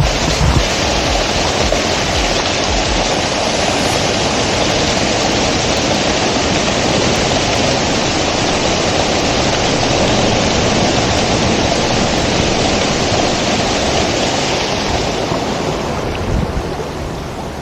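Waterfall pouring close by: a loud, steady rush of falling water, easing a little near the end.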